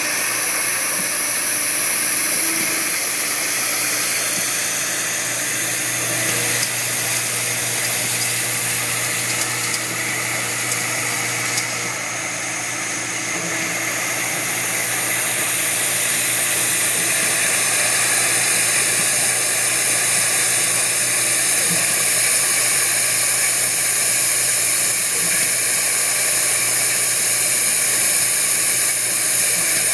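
Steady hiss of compressed air with a low hum underneath from the vibratory bowl feeder and air-fed part track of a Haeger 618Plus hardware insertion press's parts-feed system, running continuously while parts are fed.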